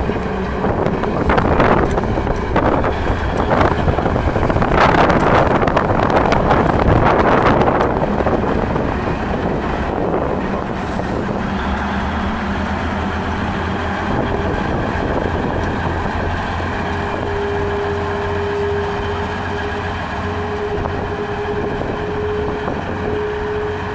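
Old GE diesel switcher locomotive running as it rolls past close by, engine and wheels on the rails loudest in the first eight seconds. After that a steadier low engine drone as it moves away, with a thin steady whine in the second half.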